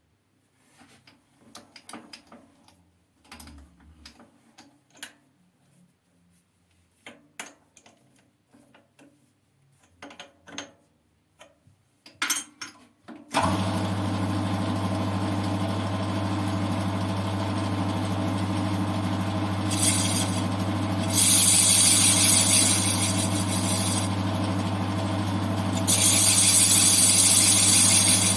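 Scattered clicks and knocks of parts and tools being handled, then about halfway a CJM280 benchtop metal lathe starts abruptly and runs with a steady hum. A louder hiss rises over the hum twice near the end, typical of the cutting tool working the part.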